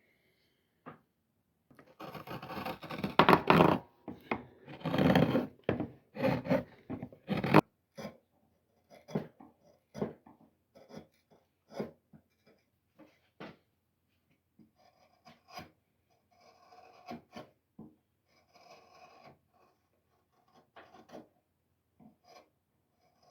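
Hand tools scraping and rasping on the wood of a handmade wooden hand plane being shaped: a run of loud strokes over the first several seconds, then sparser short scrapes and taps.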